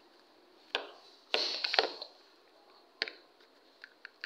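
Sharp clicks and knocks from a plastic toy gun being handled and reloaded. The loudest part is a short cluster of knocks about a second and a half in.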